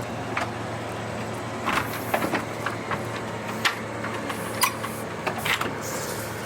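A steady low hum with scattered sharp clicks and knocks at irregular intervals.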